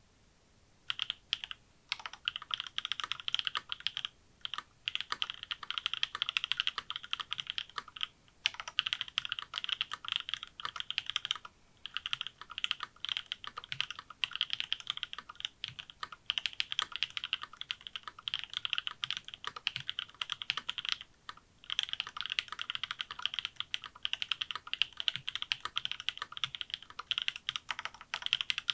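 Fast typing on a mechanical keyboard with lubed and filmed Durock L2 linear switches. Keystrokes bottom out with a bright clack, in quick runs broken now and then by short pauses.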